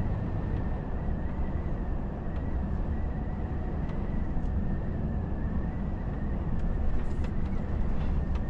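Volvo FH truck cruising at about 80 km/h, heard inside the cab: a steady low rumble of driving noise with a faint high whine.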